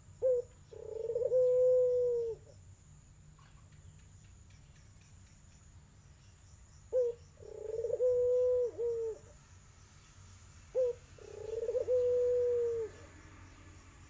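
A caged collared dove of the tangerine 'puter Irak' variety cooing three times, a few seconds apart. Each call is a short note followed by a long, drawn-out coo.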